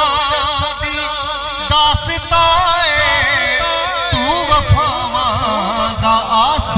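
Male voice singing a long, wavering, ornamented wordless melody of a devotional manqabat, with a steady percussion beat underneath.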